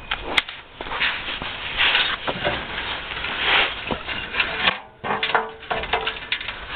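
Gloved hands working a hose clamp and coolant hose off the rear heater matrix pipe under a VW T4 van: a run of clicks, rubbing and scraping, with a sharp click just under half a second in and a brief lull a little before five seconds in.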